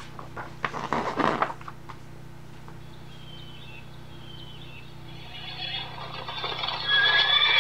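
A page of a stiff picture book is turned, with paper rustling and flapping in the first second and a half. About five and a half seconds in, the book's electronic sound panel starts playing a recorded horse neighing through its small speaker, loud from about seven seconds.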